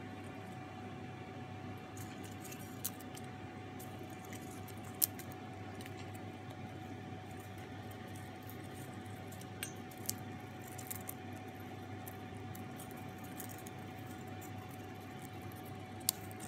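A few scattered light clicks and taps of an Indian ringneck parakeet's beak against a metal bowl as it picks at popcorn, the sharpest about five seconds in, over a steady hiss and a faint constant hum.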